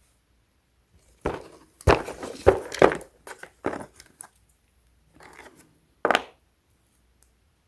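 Handling noise: a run of irregular rustles and knocks as objects and packaging are moved about, then two shorter bursts a couple of seconds later.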